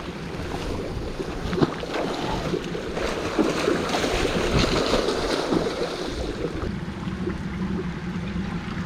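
Water splashing and churning with scattered sharp slaps as a hooked snakehead is fought at the surface.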